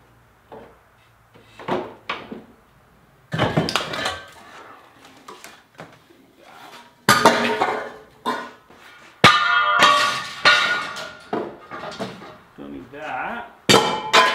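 Metal parts clanking and scraping as they are worked loose and pulled out of a minivan's engine bay: a series of sharp knocks and clatters, some ringing briefly.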